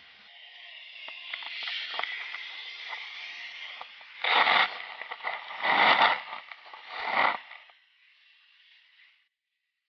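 Handling noise of an action camera being set down on beach gravel: rustling and clicking as it is moved, then three loud crunching scrapes of stones against the camera, a few seconds apart, before it settles.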